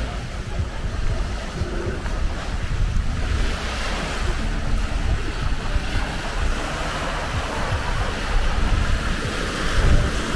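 Small waves washing onto a sandy beach, a steady hiss that swells about three seconds in, with wind buffeting the microphone as a low rumble throughout.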